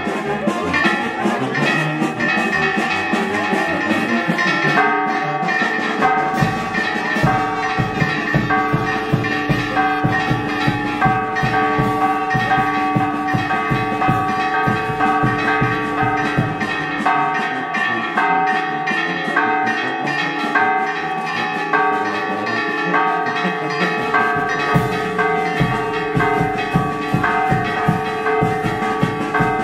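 Church bells pealing in a fast, continuous run of repeated strikes, their ringing tones overlapping.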